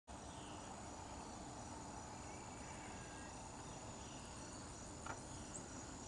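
Faint outdoor insect chorus: a steady high-pitched trilling with evenly repeating pulses.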